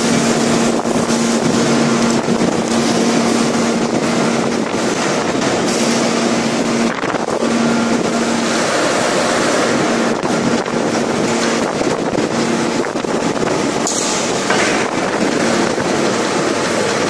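5000-ton hydraulic open-die forging press at work: a loud, steady mechanical rush with a hum that drops out about seven seconds in and comes back off and on.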